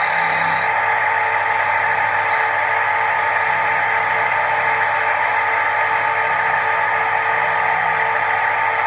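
Record wood lathe running steadily, with a turning tool cutting the spinning wooden bowl blank: a continuous hiss of cutting over the even whine of the motor.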